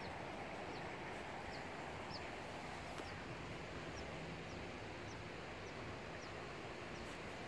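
Faint outdoor ambience: a steady background hush with a small bird giving short high chirps, about one or two a second.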